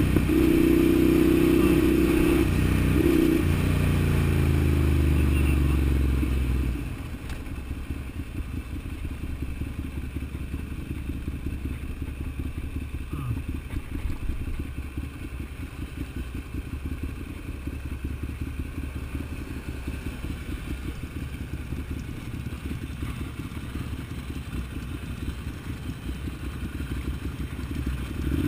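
Ducati Monster 795's air-cooled L-twin engine running under throttle for about the first seven seconds, its pitch shifting, then dropping off to a quieter, rapidly pulsing idle for the rest.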